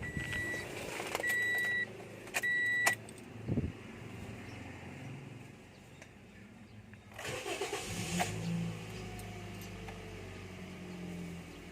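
Three short high beeps, then about seven seconds in a 2014 Toyota Vios engine cranks briefly, catches and settles into a steady idle. This is a start on an engine that is hard to start, which the mechanic blames on a clogged fuel filter.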